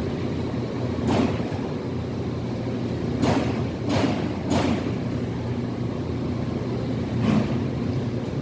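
Construction-site noise: a steady low drone with five sharp knocks, one about a second in, three between three and a half and five seconds, and one near the end.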